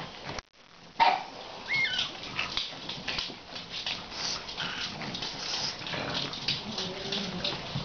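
A mother dog and her puppies play-fighting, starting abruptly about a second in: high puppy squeaks and yips and low growls, over the scuffling and scratching of paws on a rug and wooden floor.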